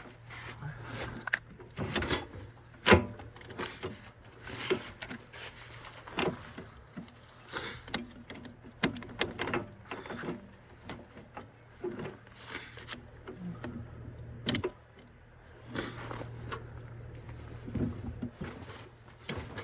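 Irregular metal clunks, knocks and scrapes as a PTO driveshaft is worked by hand to line it up with the snowblower's splined shaft, with one sharp knock about three seconds in. A low steady hum runs underneath.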